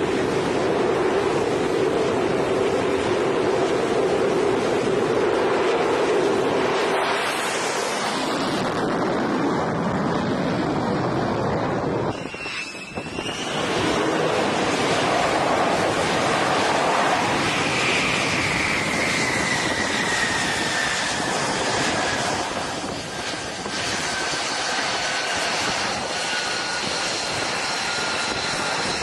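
F-35C fighter's Pratt & Whitney F135 jet engine running loud on a carrier flight deck: a steady rushing roar, briefly dipping about twelve seconds in, then a whining tone that slowly falls in pitch over the next ten seconds.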